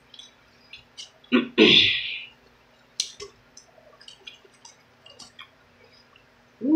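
Close-up mouth sounds of someone eating chicken wings: scattered soft clicks and smacks of chewing, with a short hum-like voice sound and a breathy hiss about a second and a half in.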